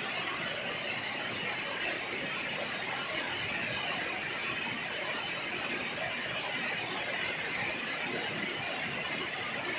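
Steady heavy rain falling on trees and leaves: an even, unbroken hiss.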